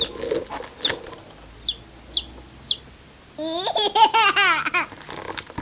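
Five short, high chirps, each falling quickly in pitch, followed about three and a half seconds in by a loud wavering, laugh-like giggle that lasts a second and a half.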